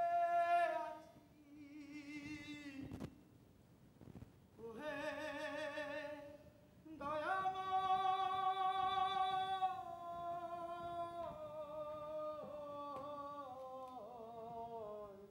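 A single voice singing long, wordless held notes of a Bengali devotional folk song. Some notes waver, and the last, longest phrase steps and glides downward over several seconds.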